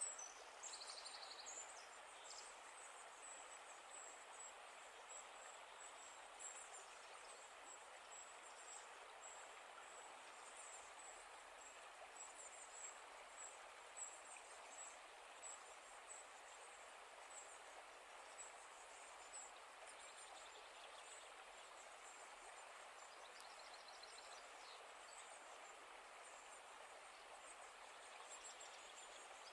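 Faint outdoor nature ambience: a steady hiss with high, thin chirps repeating throughout and a few brief chirp flurries near the start and near the end.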